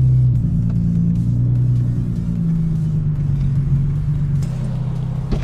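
2013 Hyundai Genesis Coupe 3.8's V6 through an ISR race exhaust, heard from inside the cabin: a steady exhaust drone that drops in level and pitch about half a second in as the throttle is eased off, then runs lower and rougher as the car slows.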